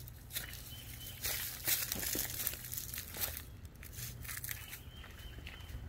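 Irregular rustling and crunching of footsteps and backpacks being set down on dry, leaf-littered wood-chip ground.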